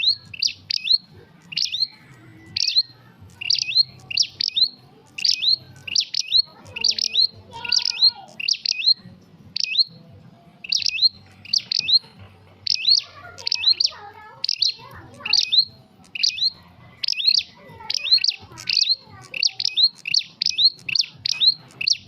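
Prenjak songbird calling: sharp, high chirps repeated in quick groups of two or three, keeping up a steady rapid series.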